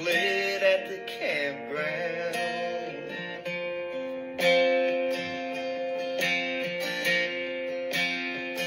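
A recorded song with strummed acoustic guitar and a singing voice. Long held notes carry through the second half.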